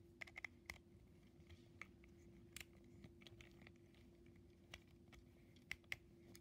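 Faint, sharp plastic clicks and taps from a plastic Plarail toy train being turned over and fingered in the hands, a few scattered clicks over a faint steady hum.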